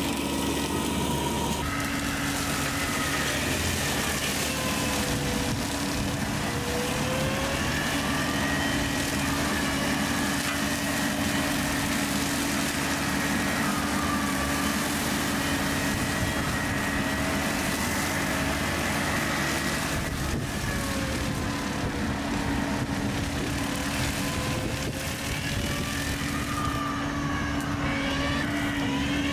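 Bobcat E45 mini excavator's diesel engine running under load while its hydraulic brush cutter spins and cuts through brush and saplings. A steady hum runs under a whine that sags in pitch and recovers several times as the cutter bites into the growth.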